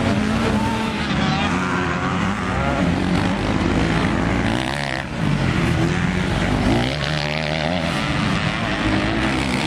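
Motocross dirt bike engines revving hard, rising and falling in pitch as the riders open and close the throttle and shift gears, with a short dip about halfway through.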